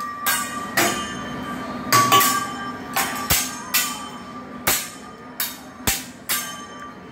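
Steel hibachi spatula and knife clanging against each other and the griddle in a chef's tool-twirling routine: about a dozen sharp, ringing metal strikes at uneven intervals.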